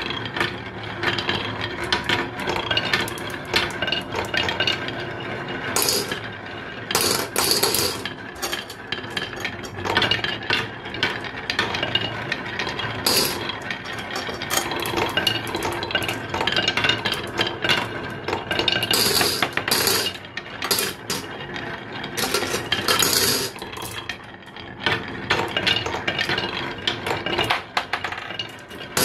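Glass marbles rolling along a wooden HABA marble run: a continuous wooden rolling rumble with many clicks and clinks as marbles knock against the tracks and each other.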